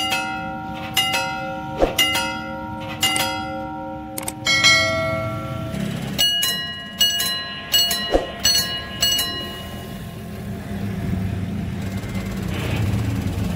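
Railway level-crossing warning bells (electric gong-type crossing bells) striking. At first there are single ringing strikes about once a second. About six seconds in, a bell with a different pitch strikes in quicker clusters, then stops about three seconds later, leaving a low road-traffic rumble. A crossing bell ringing like this warns that a train is approaching.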